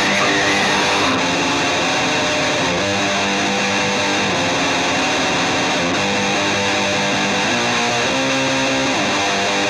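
Rock music with distorted electric guitar playing held chords that change every second or so.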